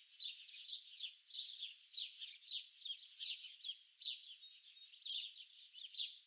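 Songbirds chirping and twittering: a busy run of short, high notes, each falling quickly in pitch, two or three a second.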